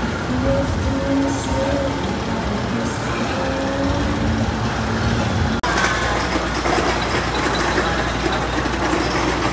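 Steel mine-train roller coaster running past on its track, a steady rumble and clatter of the train's wheels that starts abruptly about halfway through. Before it, a steady hum with faint pitched tones.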